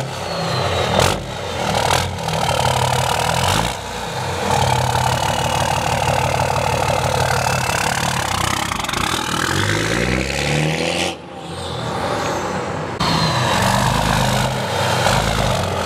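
The 5.9-litre Cummins turbo diesel of a 2005 Dodge Ram 3500 running and being revved, heard at the exhaust, with a high turbo whistle spooling up and down; the turbo's compressor silencer ring has been removed. The whistle falls in pitch several times as the revs drop.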